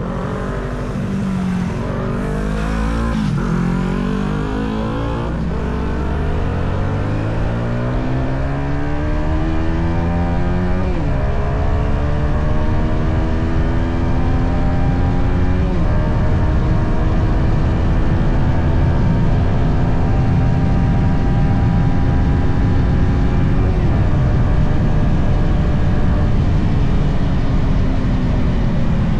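Stock Yamaha XSR 155 single-cylinder engine pulling hard under throttle, with the pitch climbing in each gear and dropping at the upshifts, about 3, 11, 16 and 24 seconds in. It runs at a fairly steady pitch between the last shifts.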